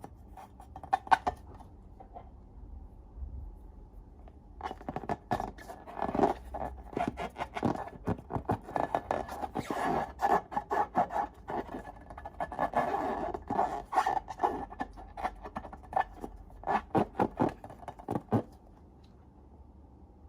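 Slime being handled, a dense run of short sticky clicks and crackles. A few isolated clicks come about a second in, the run starts about four and a half seconds in, and it stops a couple of seconds before the end.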